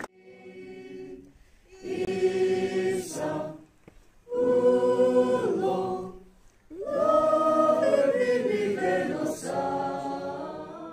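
A group of voices singing unaccompanied in sustained phrases, like a choir singing a hymn. There are four phrases of one to four seconds with short breath pauses between them; the first phrase is quieter.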